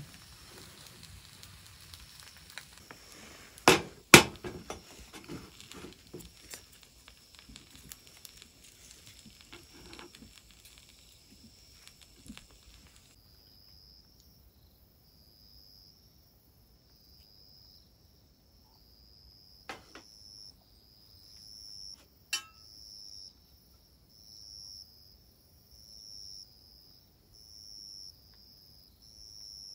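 Scattered clicks and knocks, two sharp loud ones about four seconds in, then an insect calling in short, evenly spaced high pulses, about one every second and a bit, growing louder toward the end.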